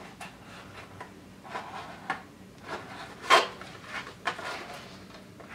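Cardboard packaging being handled: the box's cardboard inserts rub and scrape against the box as they are lifted out, in a series of short rustles, the loudest about three seconds in.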